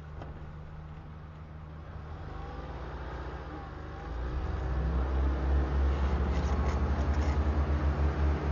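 Nissan 2400 pickup's engine revving under load as its wheels spin in soft sand while it tries to tow a stuck car. The engine gets much louder about four seconds in.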